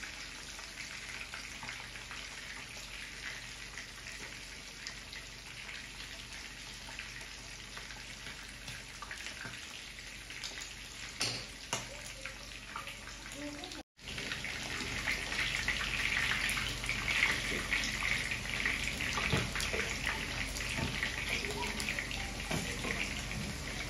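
Chunks of meat and red onion sizzling and crackling in hot oil in a non-stick frying pan, with a few knocks of a wooden spatula against the pan. The sizzle cuts out briefly about 14 seconds in and comes back louder.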